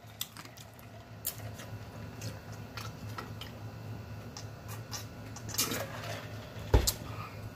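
Scattered small mouth clicks and swallowing as a man drinks from a plastic water jug, with a steady low room hum underneath. A single loud low thump comes near the end.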